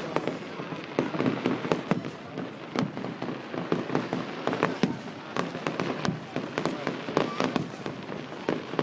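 Aerial fireworks going off in quick, overlapping succession: many sharp bangs and crackles, several a second, with no pause between them.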